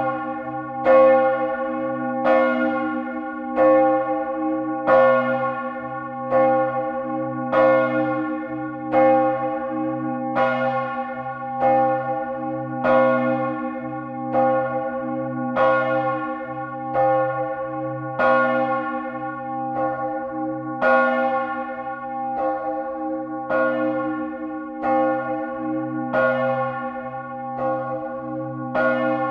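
A church's great bell swinging in full peal, heard close up inside the belfry. Its clapper strikes about once every 1.3 seconds, and each stroke rings on into the next over a low hum that never stops.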